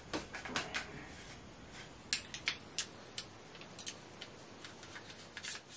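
Irregular sharp clicks and taps, a dozen or so, as electronic drum-kit rack tubes and clamps are handled and fitted together.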